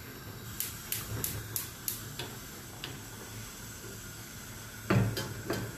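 Gas hob's electric igniter clicking about five times, roughly three clicks a second, as a burner is lit, with a faint hiss underneath. Near the end, a knock as the stainless steel pan is set down on the burner grate.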